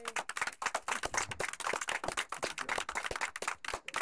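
A small group of people applauding, many hands clapping at once, thinning out near the end.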